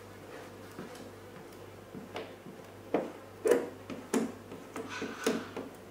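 A squeegee and fingertips working wet clear protection film onto a motorcycle fuel tank: a string of short squeaks and taps starting about two seconds in, over a faint steady hum.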